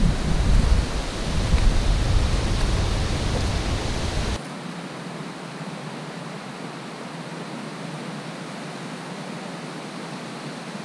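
Wind buffeting the microphone with a gusty low rumble that cuts off abruptly about four seconds in, leaving a steady outdoor hiss.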